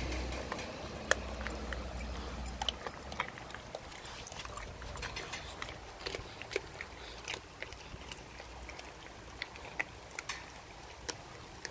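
Renascence Bulldogge puppy chewing a whole raw fish, with irregular short crunches and clicks as its teeth work through the fish.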